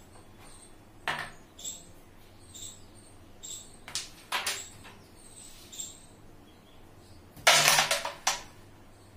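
Carrom striker set down and shifted on the board with a few light clicks, then about seven and a half seconds in a shot into the pack: the striker cracks into the carrom men and they clack against each other and the board's wooden frame for about a second.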